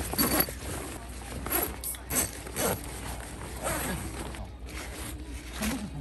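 Zipper on a tepee tent's clear vinyl door panel, pulled in several short strokes while the panel is zipped into the door.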